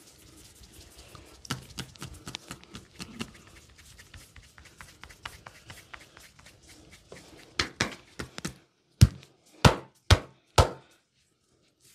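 Percussive massage: hands tapping and chopping rapidly on a man's bare back and shoulders, then a few heavier strikes, and four loud sharp slaps near the end.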